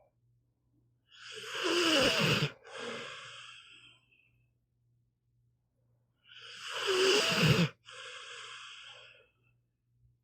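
Pit bull snoring in its sleep: two slow breaths about five seconds apart, each a loud snoring inhale followed after a brief break by a quieter exhale.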